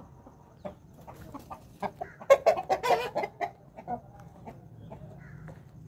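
Aseel chickens clucking, with a louder flurry of calls about two to three seconds in.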